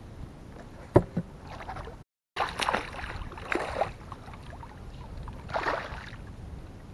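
A hooked bass thrashing and splashing at the surface beside the boat, in two spells of splashing, with a sharp knock about a second in.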